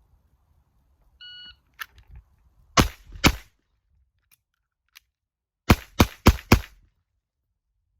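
A shot timer beeps, then a Glock 48 9mm pistol fires two quick shots, a short pause with faint clicks of a reload, and four quick shots: a run of the FAST drill.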